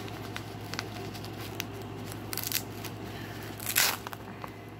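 A fabric bean bag being handled close to the microphone: scattered small clicks and crinkles, with a short, loud rasp about four seconds in.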